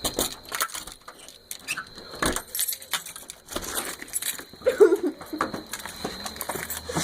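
A ring of keys jangling and clicking against a door lock as someone fumbles to unlock the front door, with a short wavering squeak about five seconds in.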